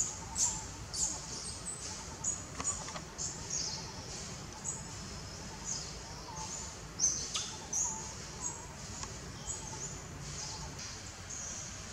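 Many short, high-pitched chirping calls at irregular intervals, over a steady outdoor background hiss.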